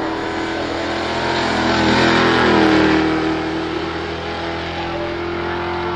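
Off-road buggy's engine running hard at high, steady revs as it drives up the hill past the microphone. It is loudest about two to three seconds in, then eases a little as it moves away.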